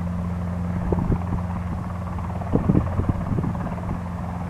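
Cessna 172R Skyhawk's four-cylinder Lycoming engine and propeller running steadily at low power, a low even drone, with a few brief irregular low thumps about two and a half to three and a half seconds in.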